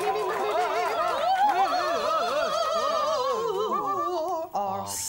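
A small group of voices singing a wordless a cappella chord, the held notes wavering with wide vibrato and sliding in pitch, then cutting off together near the end.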